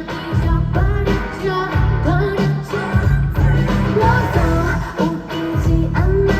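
Loud live pop music through a concert sound system: a heavy pulsing bass beat with singing over it.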